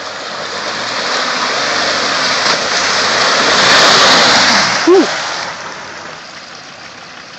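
Land Rover Discovery 4 powering through a mud bog: the engine revs with a rising and falling note while mud and water splash and spray from the wheels. The noise builds to a peak about four seconds in, then eases off. A short, sharp rising-and-falling cry comes about five seconds in.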